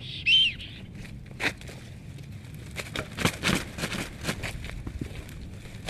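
Black storks fighting on a stick nest: one high, arched call near the start, then the rustle and flapping of wings with sharp cracks of sticks and knocks, thickest about three seconds in.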